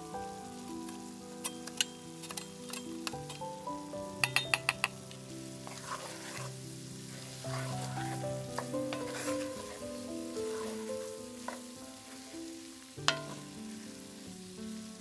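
Potatoes and onions sizzling in a cast-iron skillet as a wooden spoon stirs them, with sharp utensil knocks on the pan: a quick run of five about four seconds in and a loud single one near the end. Soft background music plays underneath.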